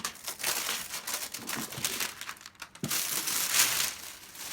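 Packaging being handled and opened, crinkling and rustling in uneven stretches, with a sharp click about three seconds in.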